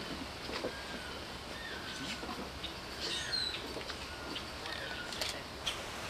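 Birds calling: a series of short, falling whistled notes, about a half-dozen over the few seconds, with a few faint clicks.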